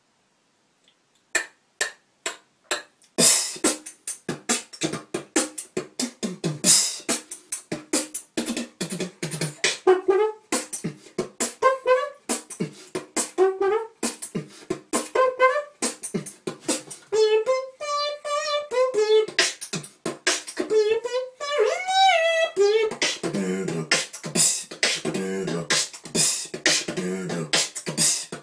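Solo human beatboxing. After about a second of near silence, a few separate mouth-made hits start the routine. From about three seconds in it settles into a steady, dense beat of kick- and snare-like mouth percussion. Later, pitched vocal melody lines weave over the beat.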